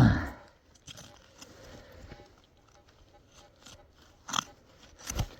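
A falling grunt of effort tails off at the start. Then come faint scrapes and taps of a hand digging tool working soil, and a sharp, heavy thud near the end.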